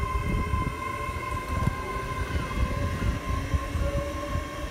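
Great Western Railway Class 800-series Intercity Express Train passing close by: a continuous rumble of wheels on rail with irregular knocks, and a steady high-pitched whine over it.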